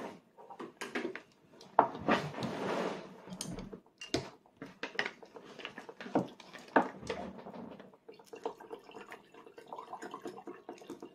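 Light, scattered clicks and taps of a child's plastic training chopsticks against a plate, the sharpest two near 2 and 7 seconds in. A short stretch of soft rustling comes about two seconds in.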